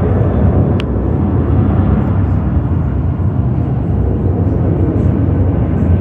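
Steady low rumble of jet aircraft across an airport apron, with a short click about a second in.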